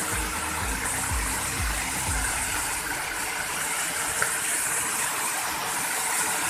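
Steady rushing of a waterfall in heavy flow, its water high after rain. A low beat of background music runs under it for the first two seconds.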